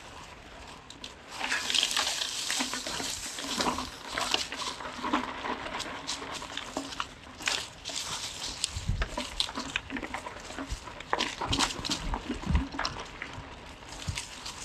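Mountain bike riding over a rough dirt road: a steady rush of tyre noise with constant clicks and rattles from the bike, starting about a second in, and a few heavier thumps from bumps.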